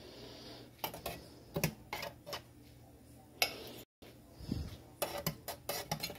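Light clinks and knocks of kitchen utensils and dishes being handled: a few spaced-out clicks, then a quicker cluster of clicks near the end.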